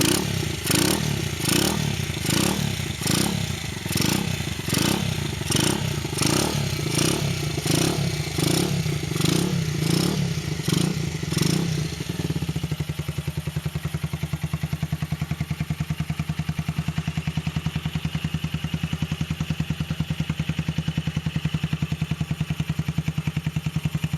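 A motor running, with a regular clattering beat about twice a second. About halfway through the clatter stops and the motor carries on running steadily.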